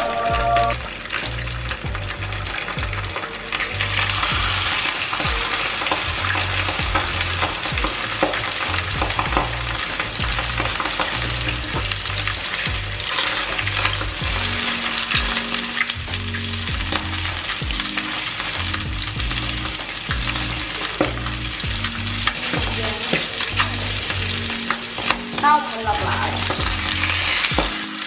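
Salmon fillets sizzling steadily in hot oil in a stainless steel frying pan over high heat, skin side down to crisp the skin, with occasional clicks of metal tongs against the pan as the pieces are turned.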